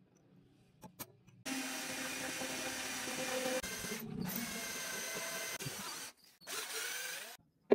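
Electric drill running as it bores a hole through a brass knife-handle scale. It starts about a second and a half in, dips briefly, stops, then runs again for a short burst near the end.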